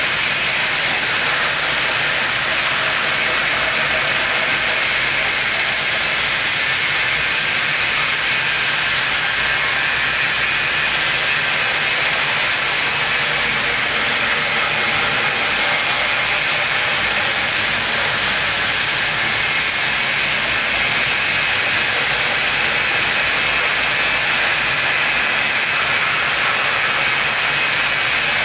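Loud, steady hiss that does not change, brightest in the upper-middle range, with a faint low hum beneath.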